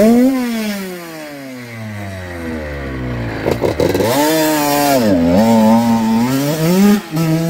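Honda CR85's 85 cc single-cylinder two-stroke engine being revved: a quick blip at the start whose pitch sinks slowly for about three seconds, then the revs pick up and are held at a wavering, higher speed with a short dip and a further blip near the end.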